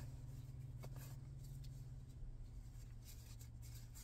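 Quiet car-cabin background: a steady low hum with a few faint clicks and rustles.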